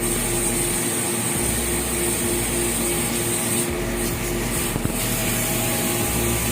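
A small motor running steadily with a constant high hiss, as from a sprayer or pump used to wash the air-conditioner.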